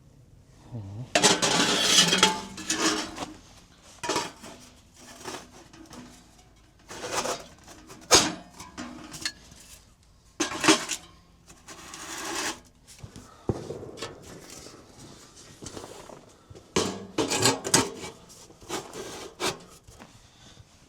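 Camp gear being handled and set down: irregular clatter and knocks of pots and utensils on hard surfaces, with some scraping and rubbing.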